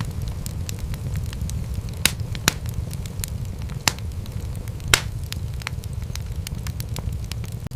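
Wood fire crackling in a fireplace: a steady low rumble of flames under frequent sharp crackles, with a few louder pops about two, two and a half, four and five seconds in.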